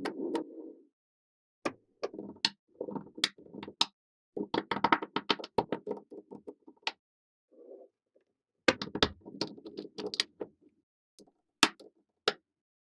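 Small magnetic balls clicking sharply as they snap together, with bursts of rapid rattling clicks as handfuls of them are moved and pressed into place, separated by short silences.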